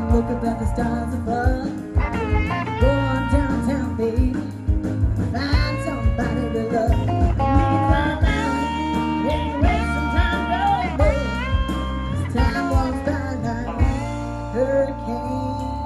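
Background music: a live band's blues-rock cover song, with singing and guitar over a steady beat.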